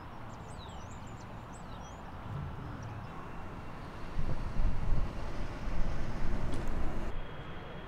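Low rumble of jet aircraft engines around an airport apron, louder and more uneven from about four seconds in. Small birds chirp high above it during the first second and a half.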